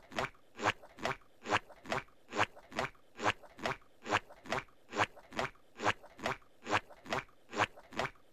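Footsteps as a sound effect: an even walking pace of a little over two steps a second.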